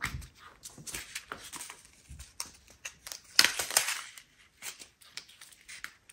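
Small plastic bags of leftover diamond painting drills being handled and sorted, with crinkling plastic and light clicks and rattles. The handling is busiest about three and a half seconds in.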